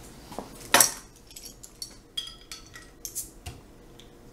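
A scattering of light knocks and a few short, ringing glassy clinks, with a sharper knock about a second in: glass beer bottles and a pint glass being handled on a wooden countertop.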